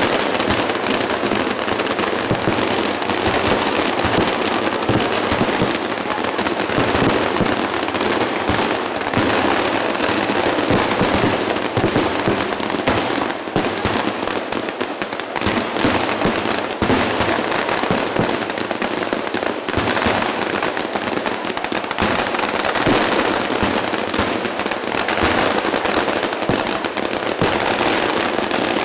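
Massed fireworks display: a dense, unbroken barrage of firecrackers going off, countless bangs and crackles running together at a steady, loud level.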